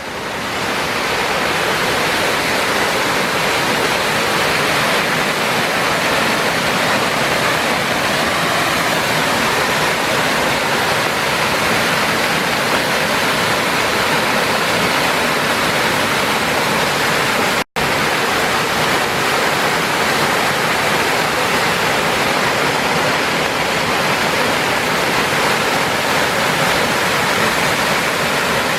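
Small waterfall on a mountain creek, a steady rush of falling and splashing water. It breaks off for an instant about two-thirds of the way through.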